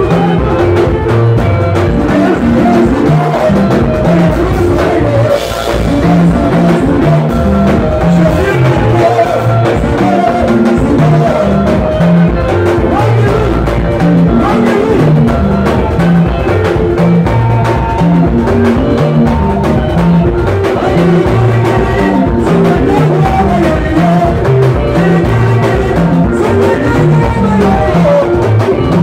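Live Congolese rumba band playing a sebene, the dance section: electric guitars over a drum kit in a steady groove, with voices at the microphones.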